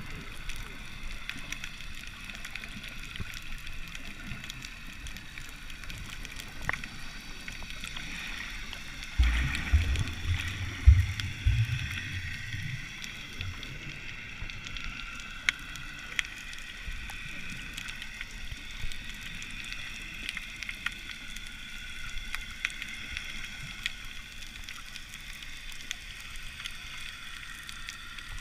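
Muffled underwater sound heard through a GoPro's waterproof housing: a steady hiss with a few faint clicks. About nine seconds in, a burst of low rumbling and bubbling runs for some four seconds.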